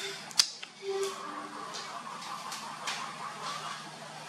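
A baby monkey scrambling on a folding cot's woven webbing and metal tube frame. There is a sharp click about half a second in, then scattered light taps and rustles.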